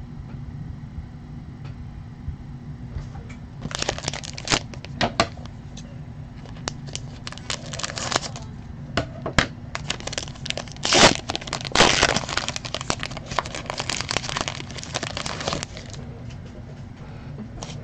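Foil wrapper of a trading-card pack crinkling and crackling as it is handled and cut open with scissors, starting about four seconds in and dying away near sixteen seconds, loudest in the middle.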